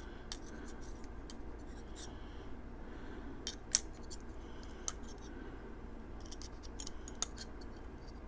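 Small metal clicks and light scrapes as the parts of a Steel Will Spica folding knife are handled and fitted together around the pivot. The clicks are scattered, and one sharp click a little under four seconds in is the loudest.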